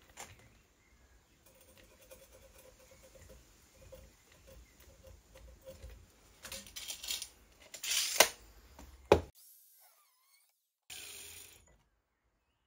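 Handling of a 16 mm square steel tube clamped in a bench vise while it is measured with a tape measure: a faint light rattle, then louder metallic scrapes about halfway through, a sharp click, and one more short scrape near the end.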